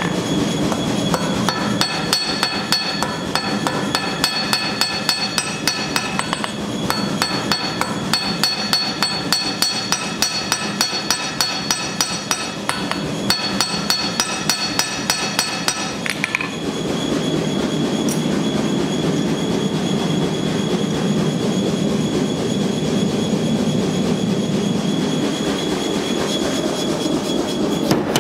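Hand hammer forging a hot steel knife blank on an anvil, about four ringing blows a second, over a steady rushing from the forge. The hammering stops a little over halfway through, leaving only the forge running.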